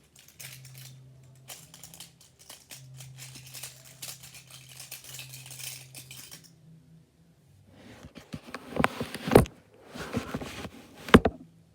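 Loose plastic Rubik's cube pieces clicking and clattering as they are handled, faint light clicks at first, then louder knocks and clacks in the last few seconds, two of them sharp and loud.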